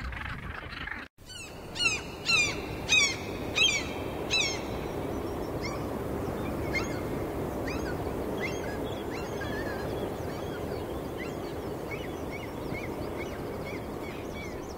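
Seabirds calling at a cliff breeding colony: five loud, falling calls in quick succession, then many fainter, shorter calls, over a steady background rush.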